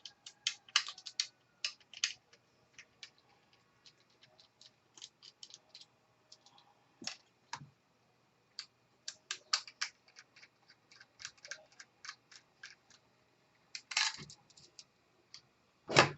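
Scattered small clicks and taps of screws, a screwdriver and laptop drive parts being handled, with a longer scraping sound about fourteen seconds in.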